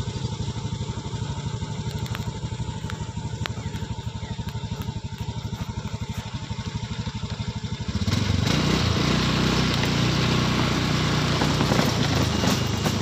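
Small motorcycle engine running at a low, even putter. About eight seconds in it gets louder and fuller, with rough road noise, as the bike gets under way on a rutted dirt road.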